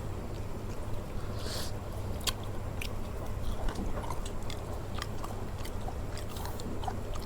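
A person chewing a mouthful of chicken biryani close to the microphone, with small wet clicks and smacks of the mouth scattered throughout, over a steady low hum.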